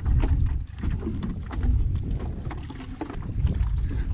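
Wind rumbling on a chest-worn camera's microphone, with irregular clicks and knocks of gear being handled as a fishing rod is strapped under a paddleboard's bungee cords.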